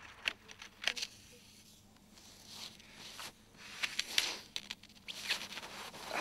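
Skis and ski poles crunching in deep snow: a few short, scattered crunches as the poles are planted and the skis shuffle forward.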